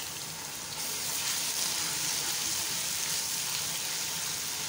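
Hot oil sizzling in an aluminium pressure cooker as whole spices fry with golden-brown grated onions and ginger-garlic paste, stirred with a silicone spatula. The steady sizzle grows a little louder about a second in.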